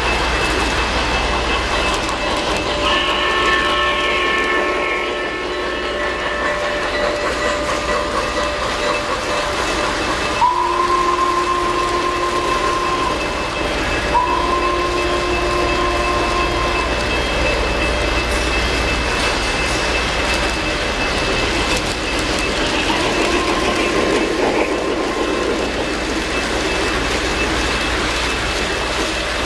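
Three-rail O-gauge model trains running on the layout with a steady rumble and low hum, over which a model locomotive's onboard sound system gives several train-whistle signal blasts; the two longest and loudest come about ten and fourteen seconds in, each held for about two and a half seconds, with fainter ones near the start and about twenty-three seconds in.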